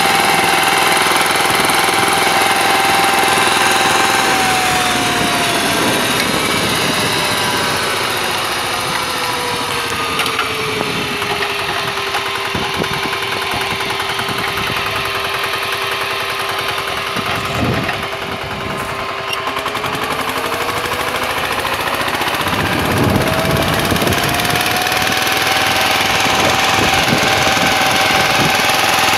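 VST Shakti power tiller's single-cylinder diesel engine running under load while its rotary tines churn the soil. The engine speed sinks gradually to about half a few seconds in, holds low for a while, then climbs back up toward the end.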